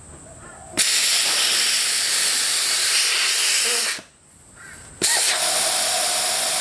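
Compressed air hissing out of a ute's tyre through a hand-held deflator on the valve stem, in two long bursts with a break of about a second between them; the second burst carries a steady whistling tone. The tyre is being let down to 15 psi.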